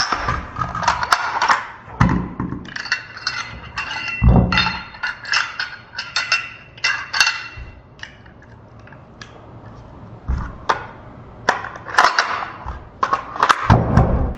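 Glock 43 pistol being field-stripped and reassembled by hand at speed: a rapid run of sharp clicks, clacks and metallic rattles as its parts are pulled apart and put back, with a quieter pause partway through.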